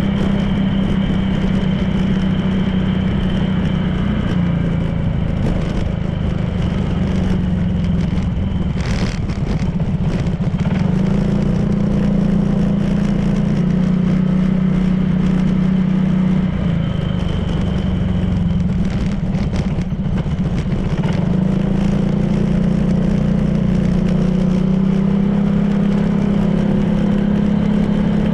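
Honda PCX 160 scooter's single-cylinder engine running under way, its drone easing off and picking up again several times with the throttle, over steady road and wind noise.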